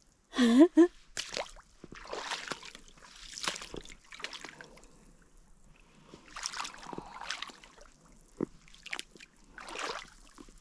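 Wellington boots wading through a deep puddle, water sloshing with each step, about one step every second or so. A short voiced exclamation right at the start.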